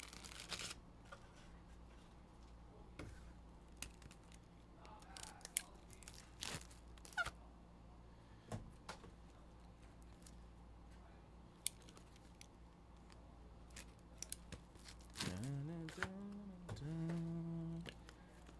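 Faint scattered clicks and brief rustles of trading cards and plastic sleeves being handled. A man hums a few held notes near the end.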